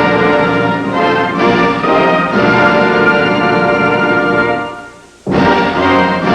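Orchestral music with brass that fades out a little over four seconds in, breaks off for a moment, then starts again abruptly.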